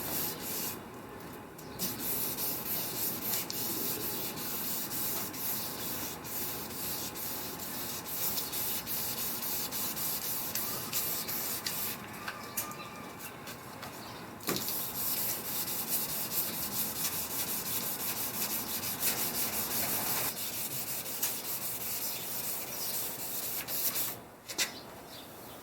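1000-grit wet sandpaper rubbing over a car's clear coat with soapy water, dulling the shine to a hazy finish. The rasping runs steadily, with two short pauses, and stops shortly before the end.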